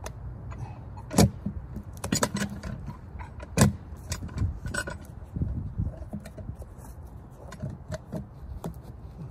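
Metal clanks and clinks of a cant hook biting into and levering a big red oak log to roll it over, the sharpest strokes about a second in and about three and a half seconds in. A tractor engine idles steadily underneath.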